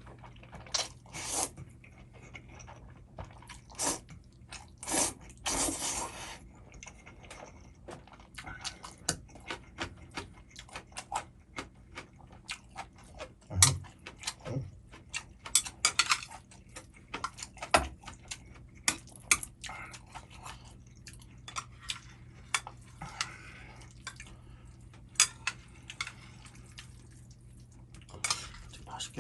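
Close-up eating of Chapagetti black-bean-sauce instant noodles: wet chewing and mouth noises, with a few longer noisy bursts in the first six seconds and many short clicks throughout.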